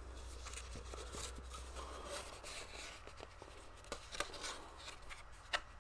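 Faint rustling and sliding of rolled paper art prints being handled and unrolled, with a few sharp ticks about four seconds in and near the end.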